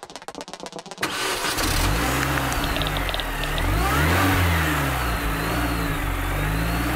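Intro sound effect: a quick drum roll, then about a second in a car engine starts and revs up and down several times.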